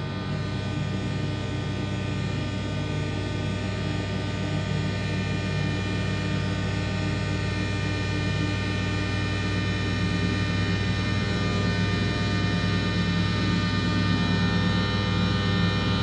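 Electronic drone music: a dense cluster of sustained tones over a strong low hum, slowly swelling louder.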